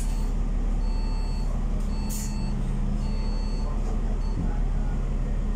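Alexander Dennis Enviro500 MMC double-decker bus heard from inside the lower deck, its diesel engine running at a steady low hum. A short electronic beep repeats about once a second, and a short hiss comes about two seconds in.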